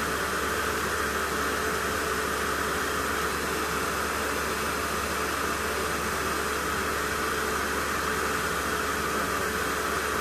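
Large 12-volt computer cooling fan from an old Pentium 4 PC, used as a solder fume extraction fan, running steadily through a cheap variable-speed controller: an even rush of air with a faint steady hum. The fan draws more current than the controller can handle, so the controller's transistor is overheating.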